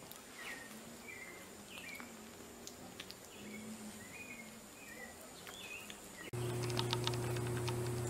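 Faint, short high-pitched chirps about once a second over a soft background. About six seconds in they cut off abruptly, replaced by a louder steady low hum with rapid ticking.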